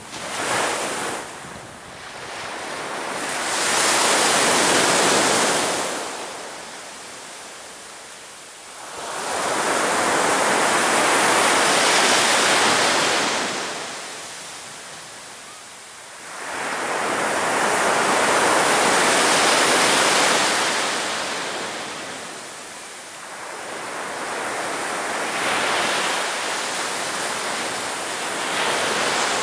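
Sea waves breaking on a beach: the surf swells up and falls away four times, about every seven to eight seconds.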